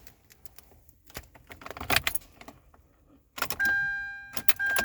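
Car keys jangling on their ring as the ignition key of a 2010 Hyundai Elantra is handled. About three and a half seconds in comes a loud whir that fades over about a second, and a steady electronic chime sounds twice. This is a start attempt, and the engine does not catch.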